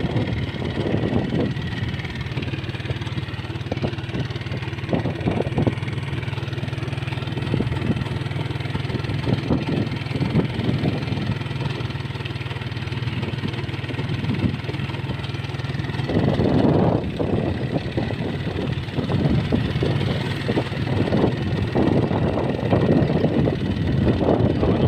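A vehicle's engine running steadily with a low hum while driving. A rougher, choppier noise comes in from about sixteen seconds in.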